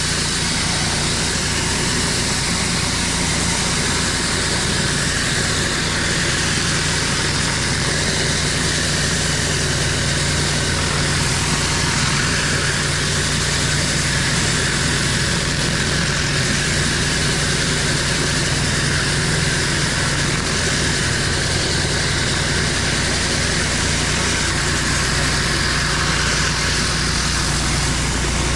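Pressure washer engine running steadily under load, with the hiss of high-pressure water from a rotary surface cleaner on concrete.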